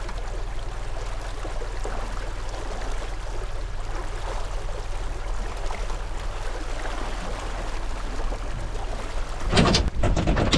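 Water rushing and splashing past the hull of a small boat moving under electric outboard power, over a steady low hum. Near the end come two louder rushes of noise.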